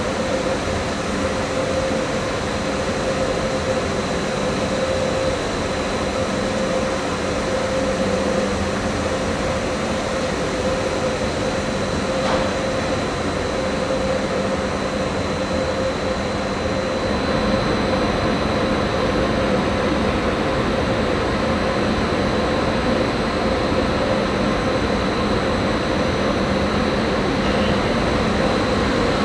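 Siemens ES 64 U2 Taurus electric locomotive standing with its cooling fans and traction equipment running: a steady hum with a thin high whine, a brief click about twelve seconds in, and the sound growing a little louder from about seventeen seconds in.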